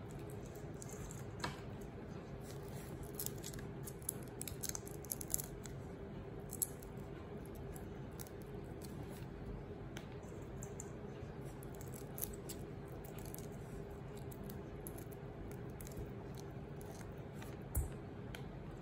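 Shrimp shells being peeled by hand: small, scattered crackles and snaps, thickest in the first several seconds and sparser after, over a steady low hum.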